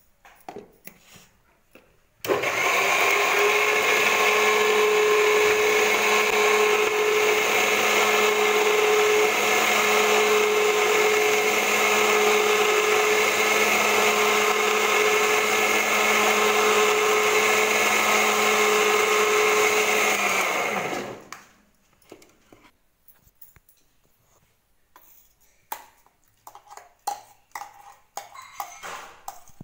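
Electric mixer grinder with a steel jar grinding chutney. The motor starts abruptly about two seconds in, runs at a steady pitch with a whine for about nineteen seconds, then is switched off and winds down.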